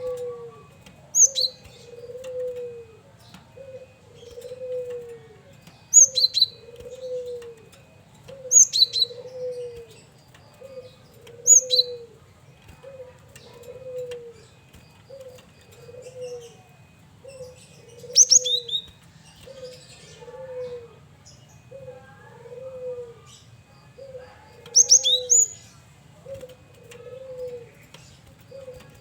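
Male cinereous tit (gelatik batu) calling, with short sharp high notes in quick bunches every few seconds. Under it runs a steady low two-note coo, repeated about every second and a half.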